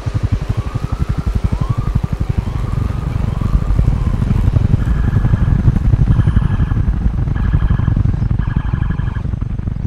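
Helicopter rotor thumping rapidly and steadily. Over it come short rising-and-falling wailing tones in the first few seconds, then a repeating pulsed tone from about halfway.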